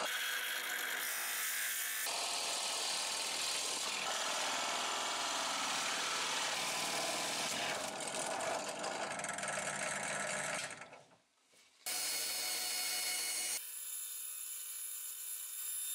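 Drill press boring through a pine board with a Forstner bit, a steady cutting noise that stops briefly near the end. A small electric bench saw then starts and runs with a steady hum.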